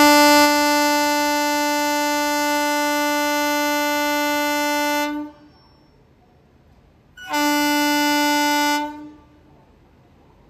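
WAP-7 electric locomotive's horn sounding one long steady blast of about five seconds, then a second, shorter blast of about two seconds.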